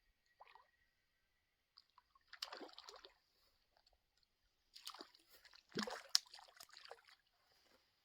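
Faint water splashing and sloshing in irregular bursts, once about two and a half seconds in and again for a couple of seconds near the middle, from a hooked brook trout being brought in.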